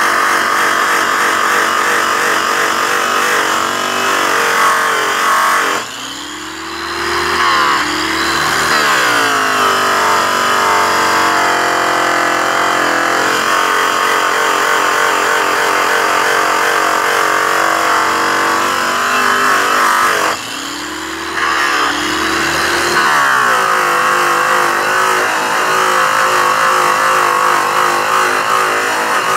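Electric rotary polisher spinning a yellow airway buff against a polished aluminum truck wheel, its motor running at a steady speed under load while it works black polishing residue out of the rim with rouge. Twice, about six seconds in and again about twenty seconds in, the sound drops away briefly and the motor slows and spins back up.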